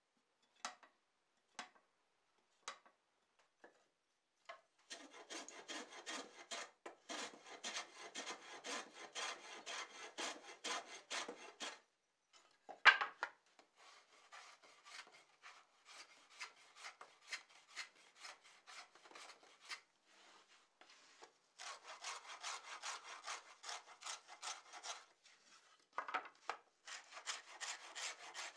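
A hand tool scraping along the edge of a wooden board in long runs of quick back-and-forth strokes, after a few separate taps at the start. There is a sharp knock about halfway through and another near the end.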